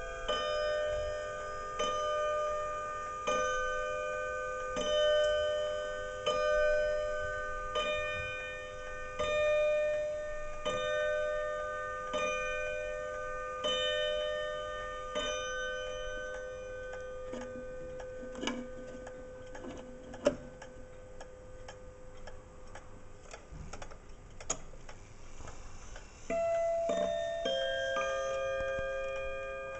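Kieninger triple-chime wall clock striking the hour, a ringing stroke about every second and a half for some fifteen seconds. Then its ticking with a few sharp clicks as the minute hand is turned, and near the end its quarter-hour chime melody starts.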